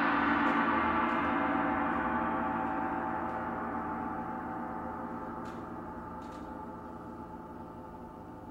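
A struck cymbal ringing out, its many shimmering tones fading slowly and evenly after a single stroke.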